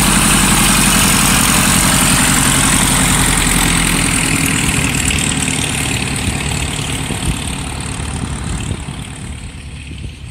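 1959 Piper PA-18A Super Cub's piston engine and propeller running as the plane taxis away, steady at first and then growing fainter from about four seconds in.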